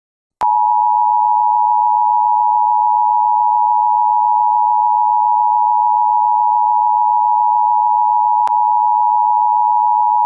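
Emergency Alert System two-tone attention signal, a steady alarm tone sounding for about ten seconds. It switches on and off abruptly with a click.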